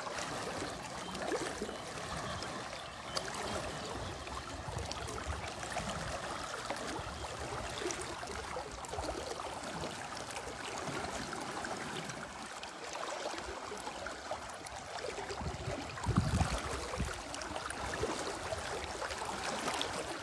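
Steady rush of a fast-flowing, muddy river running high. A brief low rumble comes about sixteen seconds in.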